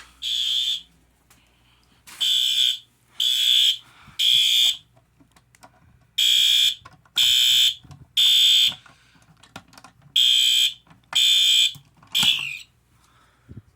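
Fire alarm horn sounding the code 3 (temporal-3) evacuation pattern: a high, shrill tone in one-second blasts, three at a time with a pause between groups, repeated three times. The final blast is cut short, its pitch sliding down as the alarm stops.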